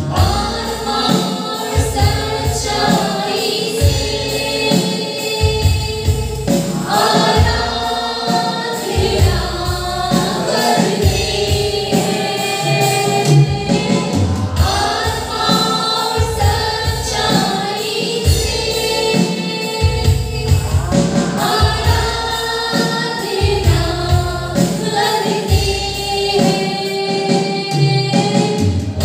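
Two women singing a Hindi Christian worship song together into microphones, over amplified backing music with a bass line that changes note every second or two.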